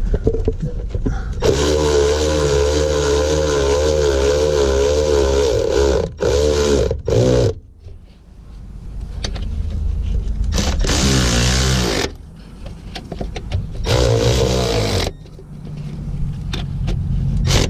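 Cordless electric ratchet run in four bursts of whirring with a wavering pitch, the first about four and a half seconds long and the others short, drawing up the fuel pump's mounting bolts.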